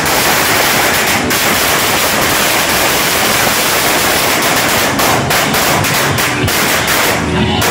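A long firecracker string laid on the pavement going off in a fast, unbroken rattle of cracks. It thins out near the end.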